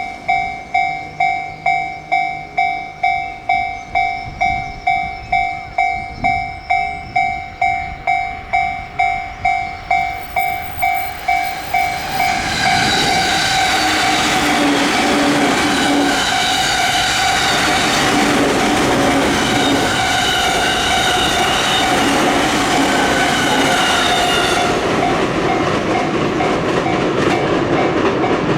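Japanese level-crossing warning bell ringing in a steady, even rhythm, about two strokes a second. About twelve seconds in, a 15-car E231-series electric train passes through loud, its wheels rumbling and clacking over the rails, with tones rising and falling inside the noise. It eases after about thirteen seconds while the bell keeps ringing faintly.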